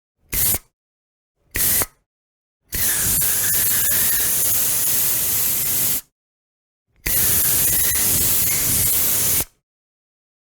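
Spray hissing from a nozzle: two short puffs in the first two seconds, then a long spray of about three seconds, a pause, and another of about two and a half seconds.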